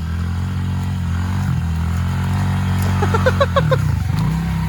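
Small pit bike engine running steadily at low revs; near the end the revs drop and then pick back up.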